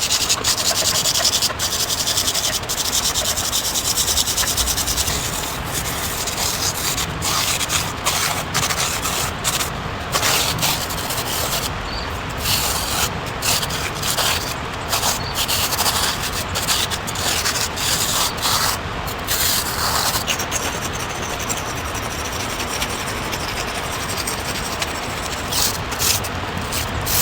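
Continuous rubbing strokes of paint being worked onto a rough road surface, with short breaks between strokes.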